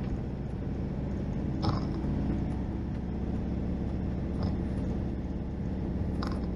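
Motorhome on the road, heard from inside the cab: a steady engine and road drone, with three faint short clicks.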